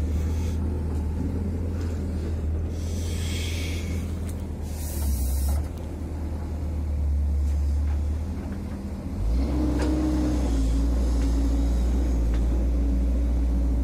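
Heavy diesel engine of construction machinery running steadily, with two short hisses a few seconds in. The engine note picks up about nine seconds in and holds there.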